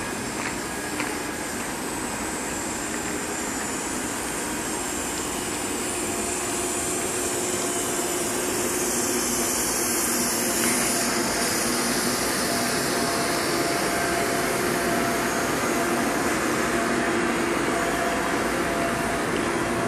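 Electric locomotive's cooling blowers running, a steady whirring hum that grows gradually louder.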